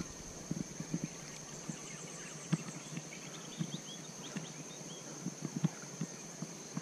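Quiet riverbank ambience: a steady high-pitched insect drone, with a few short bird chirps around the middle and scattered faint ticks.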